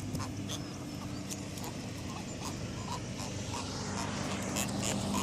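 A big catfish out of the water grunting, a sign of the fish's distress at being landed, over a steady low hum.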